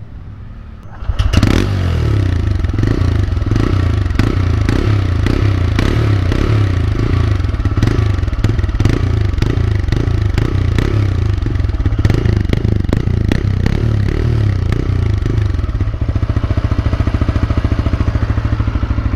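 TVS Raider 125's single-cylinder fuel-injected engine, started on its electric starter about a second in, then running at the exhaust. Its pitch wavers up and down at first and settles into a steady, even idle near the end.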